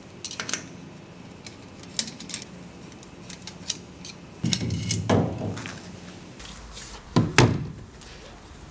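Scattered clicks and metal clunks of something being handled and set, with louder thuds about halfway through and again near the end.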